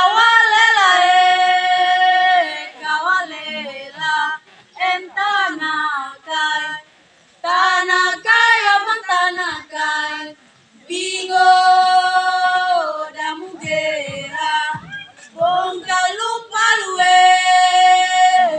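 A small group of women singing a traditional song unaccompanied, in phrases with long held notes near the start, in the middle and near the end, separated by short pauses.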